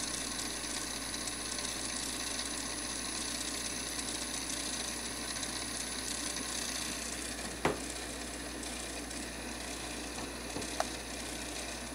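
Pioneer CT-M55R cassette changer's mechanism running through its rewind-all cycle, loading and rewinding cassettes in turn: a steady mechanical running noise with a sharp click about two-thirds of the way in and a fainter click near the end.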